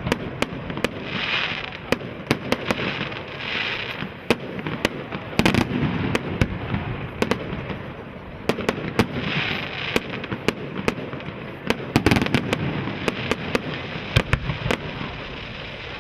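Fireworks display: a dense run of sharp cracks and bangs with rumbling booms, and several crackling swells.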